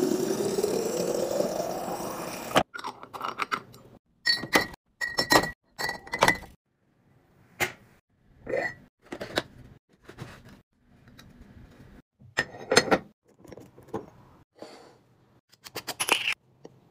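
Water from a refrigerator door dispenser pouring into a glass bottle, its pitch rising steadily as the bottle fills, stopping about two and a half seconds in. After that comes a run of separate clicks, taps and short ringing clinks of containers and lids being handled.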